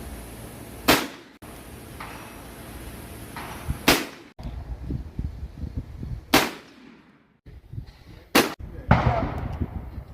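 Four shotgun shots at a sporting clays range, sharp cracks about 1, 4, 6.5 and 8.5 seconds in.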